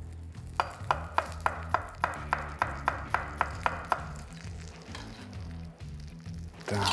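Knife slicing a peeled garlic clove on a wooden cutting board: about a dozen even strikes of the blade on the board, roughly three a second, stopping about four seconds in.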